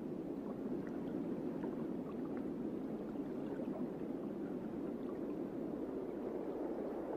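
Underwater ambience: a steady low wash of water with faint scattered clicks.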